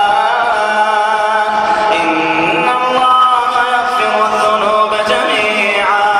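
Melodic vocal chanting: long, gently wavering held notes, with several voice layers sounding together.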